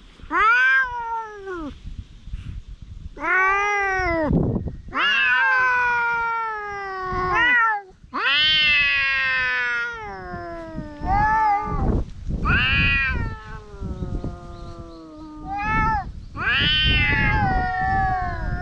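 Two stray cats yowling at each other in a territorial standoff: a string of long, drawn-out, wavering warning yowls with short pauses between them, some lasting several seconds.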